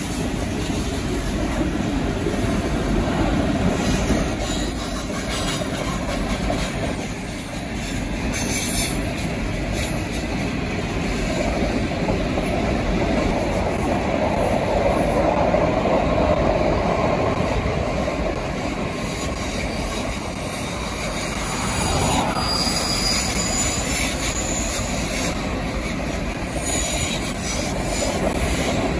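Long freight train rolling by, a steady rumble of wagons on the rails with brief high wheel squeals.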